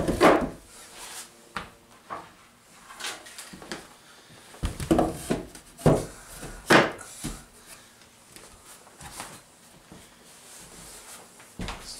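Thick wooden planks knocking and clattering as they are dropped one after another onto a wooden sleigh frame. Separate wooden knocks, loudest right at the start and again about five and seven seconds in.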